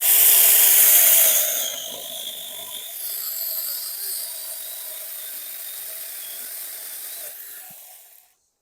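Battery-powered mini electric chainsaw cutting through a tree limb, its bumper spikes set against the wood. It starts suddenly and is loudest for the first second and a half, then runs steadier and quieter. It winds down and stops near the end.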